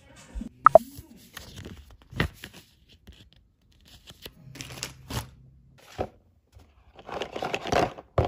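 Paper and packaging handled on a desk: scattered taps and light rustles, then a longer, louder tearing and crinkling sound near the end as a parcel is opened.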